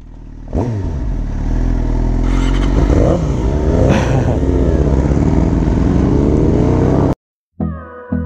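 Sport bike engine running and revving, its pitch rising and falling, then cut off abruptly about seven seconds in. Music with a regular beat starts near the end.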